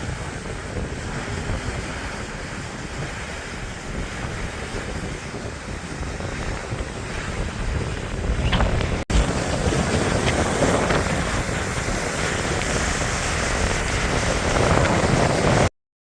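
Steady rush of a waterfall, with wind buffeting the microphone. The sound drops out for an instant about nine seconds in and cuts off suddenly near the end.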